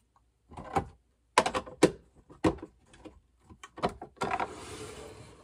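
Mini glass liquor bottles and a plastic display case clicking and knocking as they are handled: about eight light, irregular clicks, then a rustling slide near the end.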